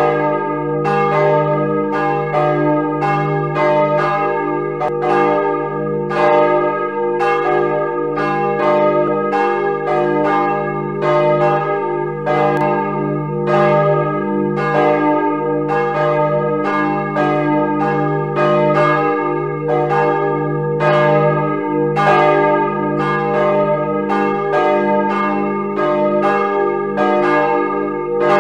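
Church bells ringing together in a full peal (volgelui), played back through a bell-ringing simulator: overlapping strikes about twice a second over the steady low hum of the bells.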